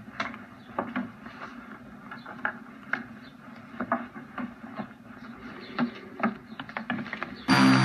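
Light footsteps and small knocks on wooden porch steps, scattered irregularly over quiet outdoor ambience. Near the end a sustained low synthesizer chord from the film's score starts suddenly and loudly.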